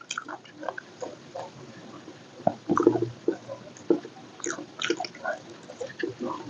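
Close-miked chewing of wet food: irregular moist smacks, squishes and clicks from the mouth.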